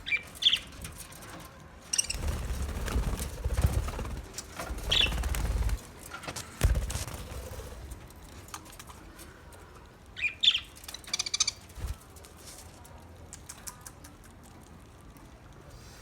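Budgerigars giving short high chirps a few seconds apart, with a few seconds of rustling wing flapping in the first half.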